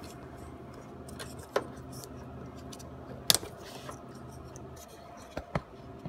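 Hands handling a plastic Weather Pack connector housing and its wires: light rustling and a few sharp plastic clicks, the sharpest about three seconds in, over a steady low hum.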